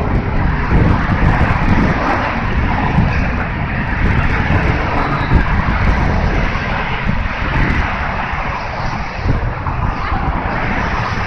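Steady drone of road traffic from the car lanes under the bridge walkway, mixed with wind rumbling on the microphone.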